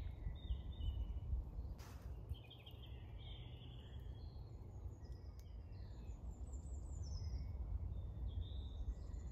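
Woodland birds chirping and warbling in short phrases over a low steady rumble, with one brief click about two seconds in.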